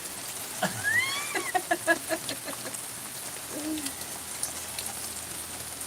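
Steady rain hiss, with a few short pitched calls over it: an arching call about a second in, a quick run of short notes after it, and a lower call about halfway through.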